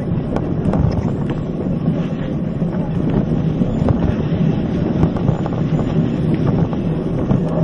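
Wind buffeting the microphone of a camera on the handlebar of a moving Niner mountain bike, over a steady rumble from the tyres on the trail. Sharp clicks and knocks come through now and then as the bike goes over bumps.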